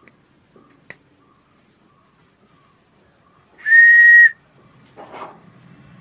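Handmade wooden train whistle blown once: a single steady whistle note, under a second long, about three and a half seconds in. A light wooden tap comes near one second in.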